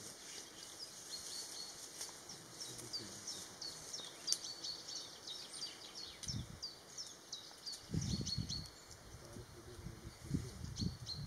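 Birds chirping: a rapid, continuous run of short, high chirps. A few low, muffled rumbles come in the second half.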